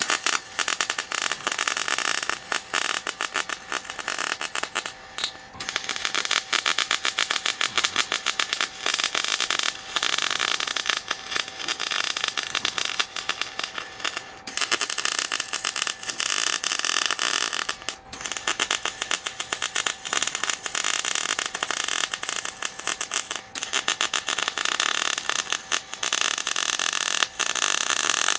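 Electric arc welder crackling and sizzling in long continuous runs, broken by a few short pauses, as weld beads are laid onto a worn steel vise screw to build it back up.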